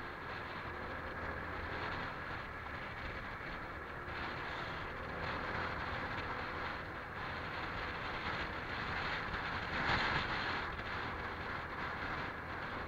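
Honda PCX scooter's single-cylinder four-stroke engine running steadily while riding, mixed with wind and road noise. A brief louder rush of noise comes about ten seconds in.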